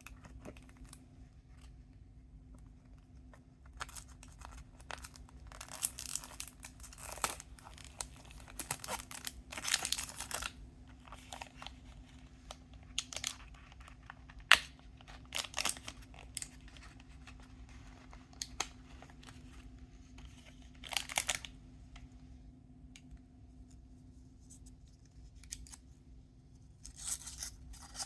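Plastic snack packaging being handled and torn open: irregular crinkling, rustling and tearing in short bursts, over a faint steady hum.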